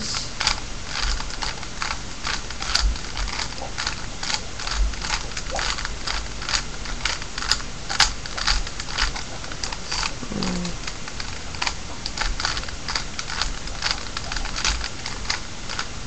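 A plastic 3x3 Rubik's cube being turned by hand: quick, irregular clicks and clacks of its layers rotating, several a second. The moves are the repeated corner-insertion sequence (right inverted, down, right, down) that solves the first-layer corners.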